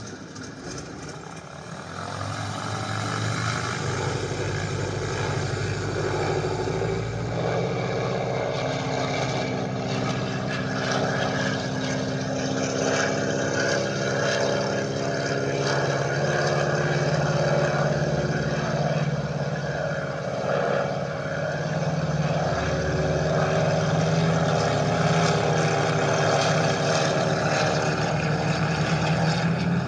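Stearman biplane radial engine sound (an aircraft sound-system effect) throttling up about two seconds in for the takeoff run, then running steadily at high power with propeller drone.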